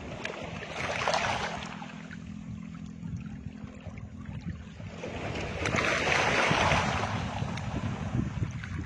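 Outdoor wind rumbling on the microphone with water washing against the jetty, swelling into louder hissing surges about a second in and again around six seconds in. A low steady hum underneath fades out about five seconds in.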